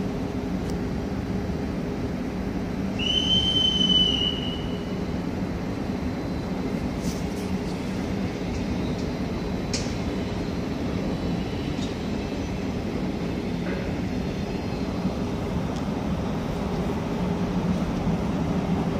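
Passenger train rolling through a station with a steady low rumble. A brief high squeal about three seconds in, a few sharp clicks around the middle.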